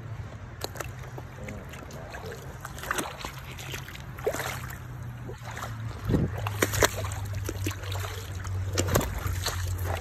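Footsteps over creek-bank rocks and gravel: irregular clicks and scrapes of stones underfoot, louder in the second half, over a steady low rumble.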